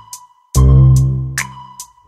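Background music with a steady beat: regular crisp ticks over a held high tone, and a deep bass note that hits about half a second in and slowly fades.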